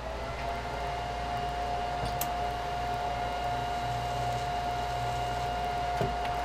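TIG welding arc on a steel roll-cage tube: a steady high-pitched hum over a hiss, sliding up slightly in pitch as the arc strikes, then holding one even tone.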